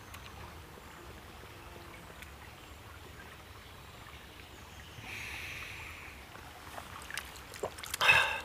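Shallow stream trickling faintly over stones. About five seconds in comes a hiss of about a second as water is sucked up through a LifeStraw hollow-fibre filter straw, and a short loud noise follows near the end.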